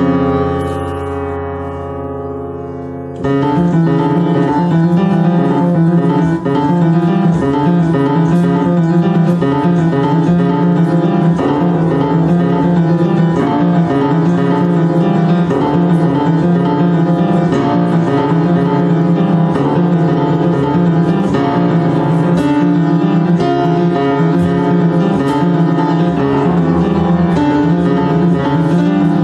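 Yamaha U1 upright piano playing: a chord is struck and left to ring for about three seconds. Then comes a loud, steady, driving pattern of repeated notes under moving chords.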